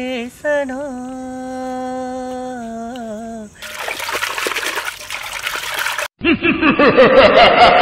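A woman's voice holding one long sung note with a slight waver, then water running and splashing as tomatoes are rubbed clean by hand in a metal bowl. After a sudden break, a loud warbling sound of rapidly rising and falling pitch.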